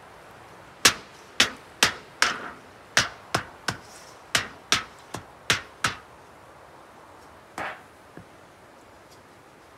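A blade chopping small pieces of wood on a log chopping block: about a dozen sharp knocks, two or three a second, then after a pause one duller knock and a last light tap.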